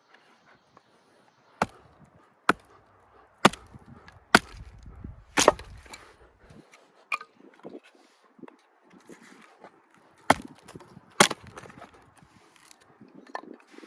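Firewood being chopped: sharp wooden strikes, five about a second apart, then two more close together near the end.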